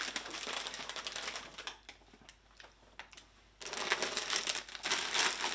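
Plastic snack bags crinkling as they are handled, in two spells: the first dies away a little under two seconds in, and after a near-quiet gap with a few faint clicks a louder spell of crinkling starts about three and a half seconds in.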